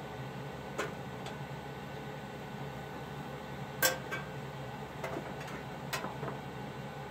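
Light metal clicks and taps from brass rod and copper sheet parts being handled and fitted, with one louder ringing clink near the middle, over a steady low background hum.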